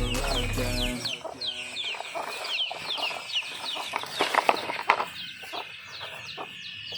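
Background music ends about a second in, leaving birds chirping: many quick, repeated peeps that fall in pitch. There are a few sharp knocks between about four and five seconds in.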